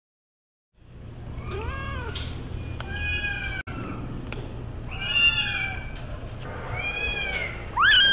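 Kitten meowing repeatedly: about five short meows that rise and fall in pitch, starting about a second in, the last one the loudest, over a low steady rumble.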